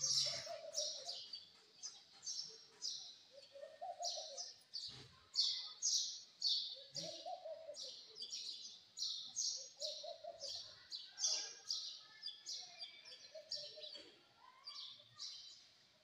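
Birds chirping: a steady run of short, high chirps, two or three a second, with a lower call recurring about every three seconds.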